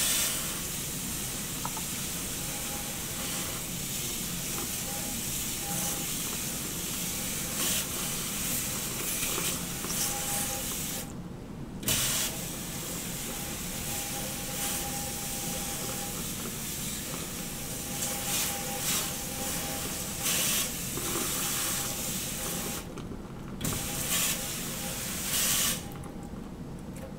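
Water from a sensor-activated faucet running onto soapy forearms and hands and into a stainless steel sink as they are rinsed after a surgical scrub. The rushing water drops out briefly twice, about eleven and twenty-three seconds in, and fades shortly before the end.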